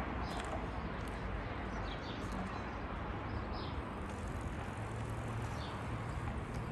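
Riverside city ambience: a steady background hum of distant traffic, with short high bird chirps every second or two. A low hum grows stronger from about five seconds in.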